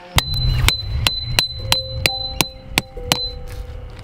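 A metal tent stake being hammered into gravel: about nine sharp strikes, roughly three a second, each with a bright metallic ring.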